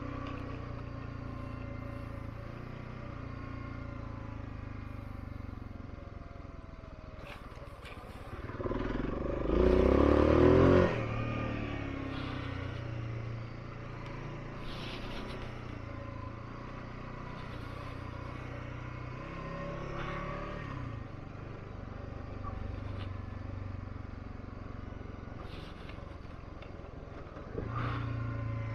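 Dual-sport motorcycle engine running steadily under way. It swells into a loud burst of acceleration about nine seconds in that lasts a couple of seconds, with a smaller rise again near the end.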